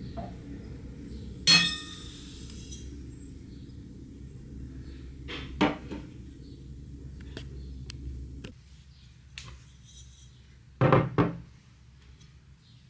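Dishes and utensils being handled: a sharp clink that rings briefly about 1.5 s in, a couple of knocks near the middle, scattered light ticks, and two heavy thuds close together near the end. A steady low hum runs underneath until just past the middle, then stops.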